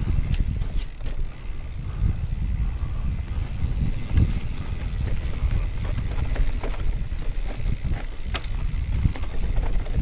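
Mountain bike running fast down a dirt forest singletrack: steady wind rumble on the microphone and tyre noise, with frequent sharp clicks and rattles as the bike goes over bumps and roots.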